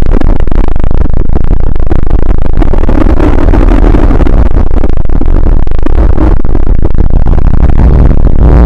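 Harsh, heavily distorted noise of a made-up emergency alert alarm, held at a steady clipping loudness with a heavy low rumble and no clear alert tones.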